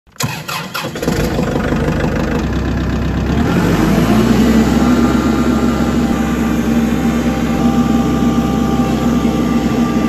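An engine starts and runs steadily, its pitch stepping up about three and a half seconds in.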